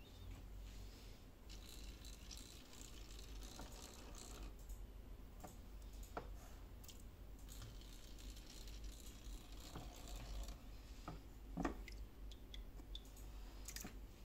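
Faint water sloshing and lapping in a metal pot around a floating soft fishing lure, with scattered light clicks and one sharper click about eleven and a half seconds in, over a low steady hum.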